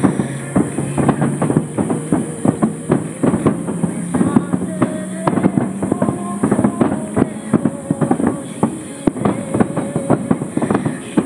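Aerial fireworks shells bursting in a rapid, continuous string of bangs and crackles.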